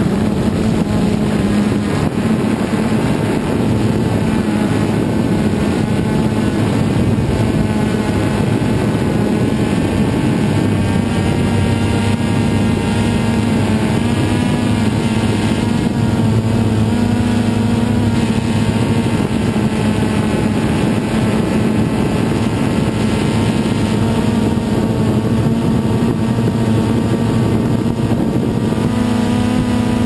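DJI Phantom 2 quadcopter's electric motors and propellers, heard from the camera on the drone itself: a loud, steady buzzing drone with several whining tones that waver a little in pitch as the throttle changes.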